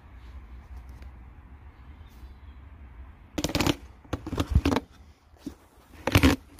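Pleated paper air filter element rubbing and scraping against its plastic air box as it is pulled out by hand, in a few short rustling bursts about three and a half seconds in and again near the end.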